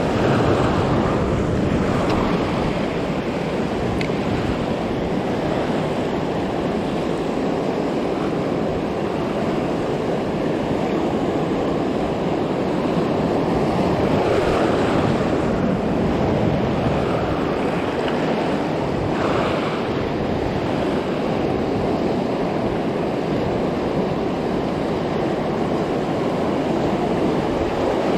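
Ocean surf breaking and washing over rocks close by: a continuous rushing wash that swells as each wave comes in, most noticeably about a second in, around fifteen seconds and again around nineteen seconds.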